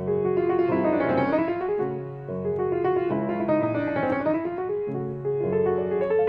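Solo classical piece played on a grand piano: quick runs of notes sweep down and back up twice in the middle register over sustained bass notes.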